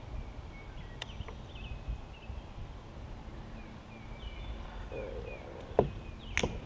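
Birds chirping in short, repeated calls over a low outdoor rumble, with a few sharp knocks, the loudest near the end.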